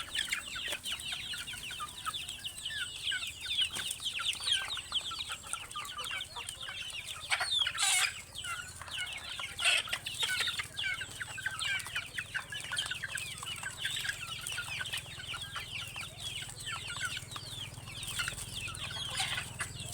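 A flock of young Darag native chickens, about 80 days old, clucking and peeping continuously in many short overlapping calls, with a couple of louder calls about eight and ten seconds in.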